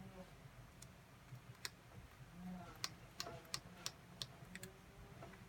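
Faint, irregular small clicks of a screwdriver working the tiny screws out of the plastic case of a TowerPro SG90 micro servo.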